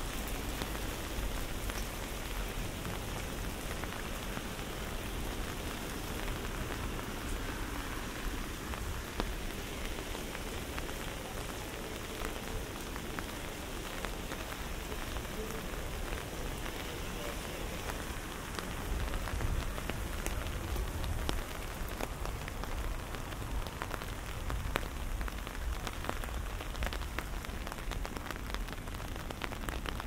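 Steady rain falling, with many individual raindrops ticking sharply close by, over a low rumble.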